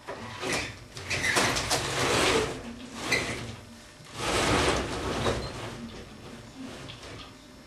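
Roller window shutter being pulled up, its slats rattling as they roll up, in two long pulls with a sharp click between them.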